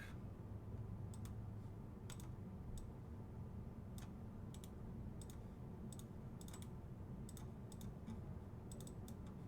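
Faint, irregular clicking of a computer mouse and keyboard, about a dozen single clicks spread unevenly over a low steady room hum.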